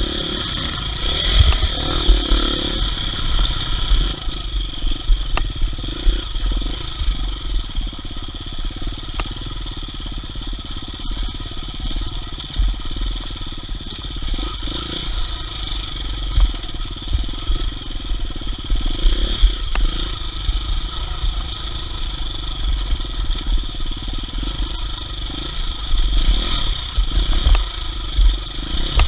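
Off-road dirt bike engine running as it rides a trail, the engine note rising and falling irregularly, with a steady low rumble underneath.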